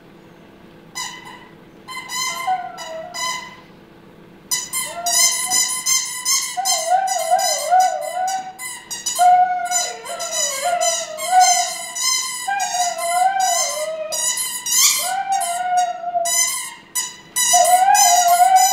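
Siberian husky howling in long, wavering notes along with a squeaky toy that is squeaked rapidly over and over. It starts with a few scattered squeaks and short howls, and from about four and a half seconds in the squeaking and howling run on together without a break.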